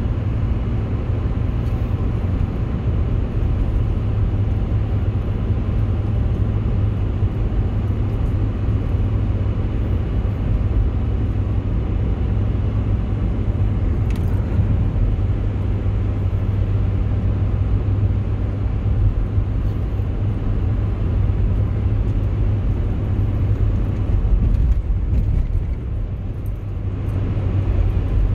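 Car driving on a wet road: a steady low rumble of engine and road noise heard from inside the cabin, easing briefly near the end.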